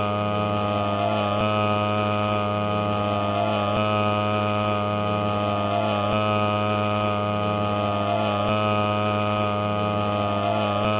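A loud, steady buzzing drone of many held tones with a faint pattern repeating about every two and a half seconds: a heavily distorted, looped piece of audio.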